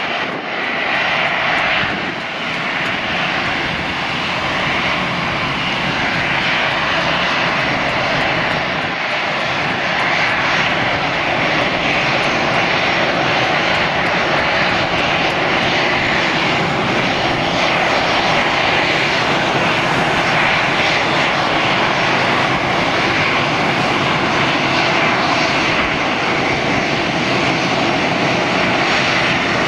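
Airbus A320's twin CFM56 turbofan engines running at low thrust as the airliner taxis in after landing: a steady jet engine rush. It dips slightly in the first couple of seconds, then holds level.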